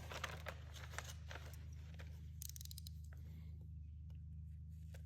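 Faint scattered clicks and light scraping from hand work, with a quick run of sharp ticks about halfway through, over a steady low hum.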